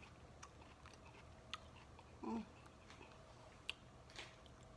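Faint chewing and mouth sounds of a person eating nachos, with a few sharp clicks and a short hummed "mm" a little over two seconds in.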